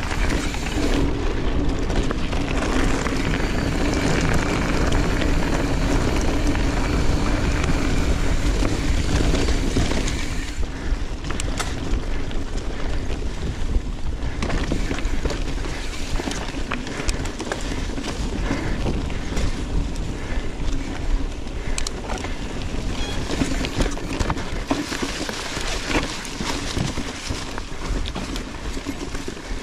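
Riding noise from a YT Izzo trail mountain bike on a dirt trail: wind buffeting the microphone and the tyres and frame rattling over the ground. A steady hum for about the first ten seconds, then rougher and more uneven, with scattered sharp knocks.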